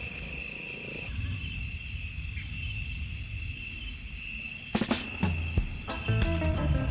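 Background music with a steady high chirping pulse, about four a second, running under it. A few sharp clicks come about five seconds in, and fuller pitched notes enter near the end.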